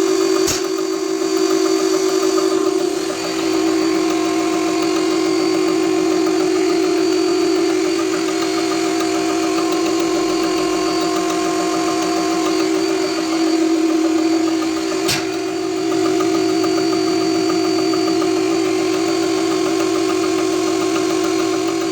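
Volvo FH460 truck's 13-litre six-cylinder diesel engine running steadily, with a strong steady whine over it. Two sharp clicks come through, one just after the start and one about fifteen seconds in.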